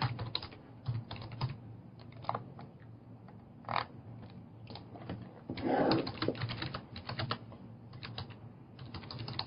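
Typing on a computer keyboard: irregular runs of key clicks, with a brief muffled sound about six seconds in.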